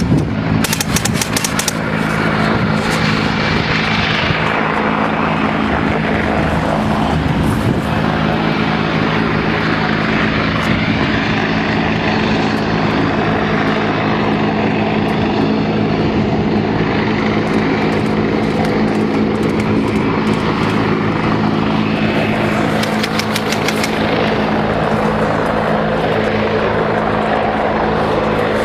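WZ-10 attack helicopter flying overhead: a loud, steady rotor and engine noise with a constant low hum.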